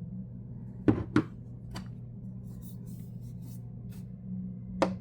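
Flashlight being handled and set down: two sharp knocks about a second in, another shortly after, a few faint ticks, then two more knocks at the end, over a steady low hum.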